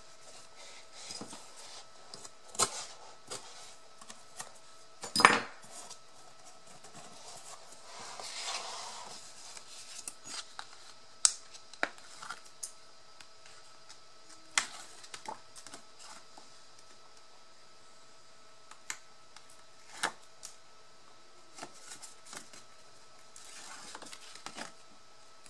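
Irregular small clicks and taps of paper-craft pieces and tools being handled on a tabletop, with a sharper knock about five seconds in and a brief rustle of paper around eight seconds.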